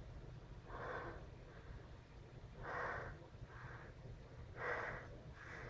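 A person's short, breathy gasping inhalations, about five in a row with the loudest around three and five seconds in: the catching breaths before a sneeze.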